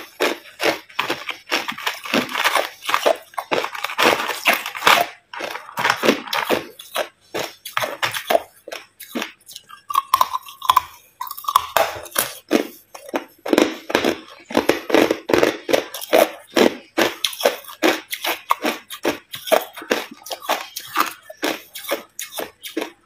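Hard ice chunks being bitten and chewed, a rapid, irregular run of crunches and cracks with a short lull about ten seconds in.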